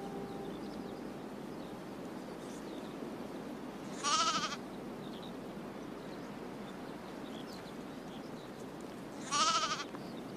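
A lamb bleating twice, two short wavering calls about five seconds apart, over a steady low hiss.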